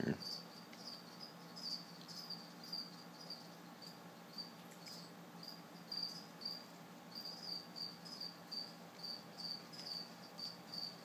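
A cricket chirping steadily and faintly: short, high chirps repeating about two to three times a second.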